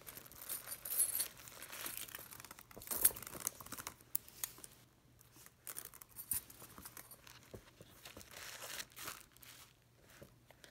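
Tissue paper rustling and crinkling in handling bursts as a small Dior Diorama leather handbag is opened and its stuffing handled, with scattered light clicks from the bag's chain strap and clasp hardware.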